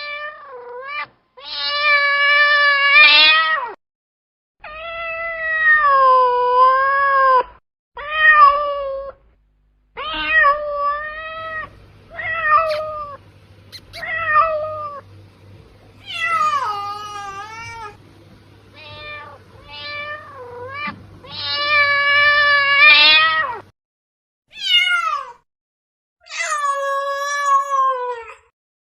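Domestic cat meowing over and over: a run of separate meows, some long and drawn out with the pitch sagging and rising again, others short and quick, with brief silences between them.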